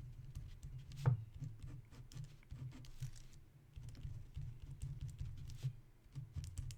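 Writing sounds: light scratches and taps of a pen on a writing surface over a low, steady hum, with a sharper tap about a second in.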